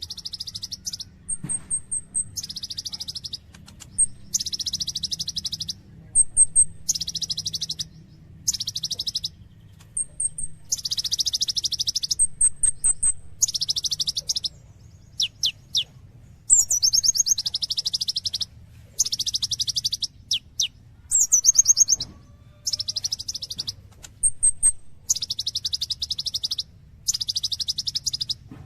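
Olive-backed sunbird (kolibri ninja) singing nonstop: fast, buzzy trilled phrases about a second long, repeated every second or two. Short high chirps come between the phrases, over a faint steady low hum.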